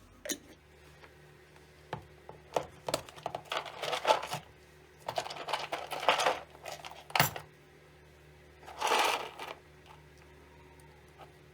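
Kitchen handling sounds: a series of light clicks and clinks mixed with short rustling or scraping bursts, with one sharp click about seven seconds in and a longer rustle about nine seconds in.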